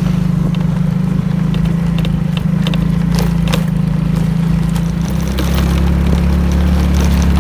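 Motor scooter riding along a rough, patched country lane: a steady engine and low rumble, with a few short knocks. About five seconds in, the rumble deepens and grows louder.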